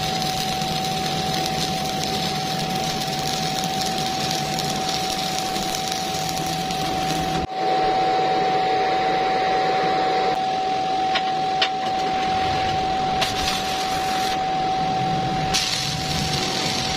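Stick (MMA) welding arc from a Stahlwerk InMIG-6LV inverter welder, a steady hissing noise with a high whine under it. About halfway through it gives way to a duller noise with a few light clicks, and the arc noise returns near the end.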